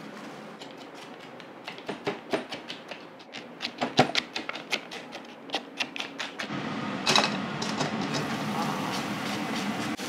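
A kitchen knife mincing garlic on a cutting board, a quick irregular run of sharp taps about four a second. About six and a half seconds in, garlic starts to sizzle in hot oil in a frying pan, a loud burst at first and then a steady hiss.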